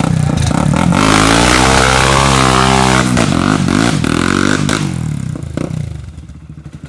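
ATV engine revving hard close by while the quad churns through a mud hole, its pitch rising and falling. It fades after about five seconds as the quad moves off, leaving a steady, slower idling putter near the end.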